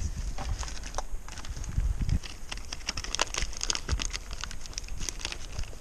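Plastic wrap crinkling and crackling as it is pulled off a set of new disc brake pads, with scattered sharp clicks as the pads are handled.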